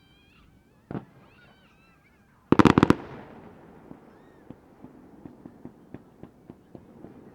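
Aerial fireworks: a single bang about a second in, then a rapid volley of about six loud bangs around two and a half seconds in. The volley trails off into a long fading rumble, with scattered small crackling pops after it.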